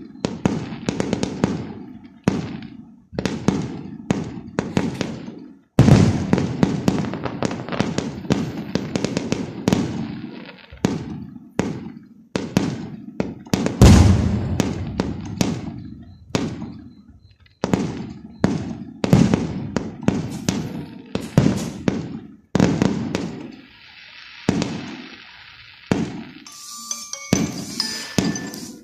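Aerial fireworks going off in rapid succession: sharp bangs and booms, each trailing off in echo, with the heaviest blasts about six and fourteen seconds in. Near the end the bangs give way to a steadier hissing, crackling spell.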